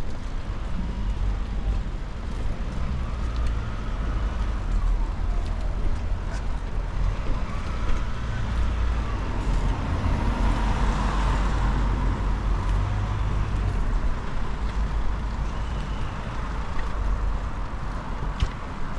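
Street traffic on a wet road over a steady low rumble, with one vehicle passing about ten seconds in.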